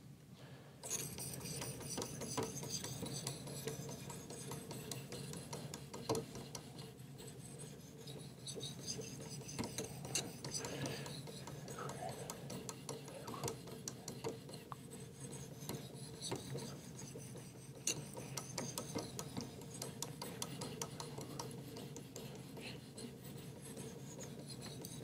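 Ceramic hone on a Work Sharp Precision Adjust knife sharpener stroked rapidly up and down along a clamped steel blade. It makes a faint, steady scraping with many small clicks, starting about a second in. This is the fine ceramic honing stage that follows the 320 and 800 grit stones.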